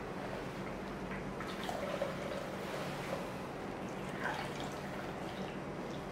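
Blended turmeric juice trickling and dripping through a mesh straining bag into a container as the bag is squeezed by hand.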